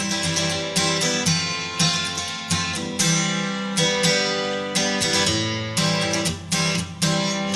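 Background music: acoustic guitar strumming and picking chords at a steady pace.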